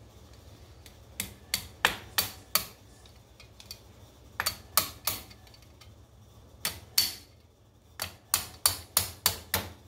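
Small hammer tapping a new cotter pin through the hole in a Farmall Cub's front wheel spindle: about seventeen light, sharp metal taps in four quick runs.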